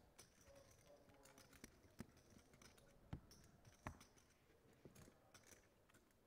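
Near silence broken by faint, scattered clicks and taps, a few slightly louder ones about two, three and four seconds in.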